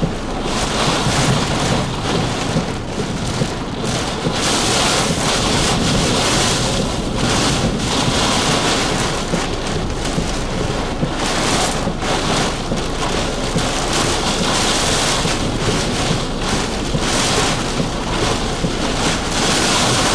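Heavy wind-driven rain pelting a vehicle in severe storm winds, heard from inside: a dense, loud hiss that surges and eases in gusts.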